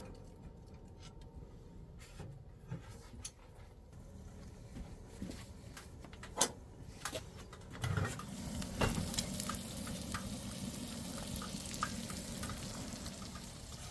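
Food sizzling in a pan, the sizzle growing louder in the second half, with scattered clicks and taps of utensils.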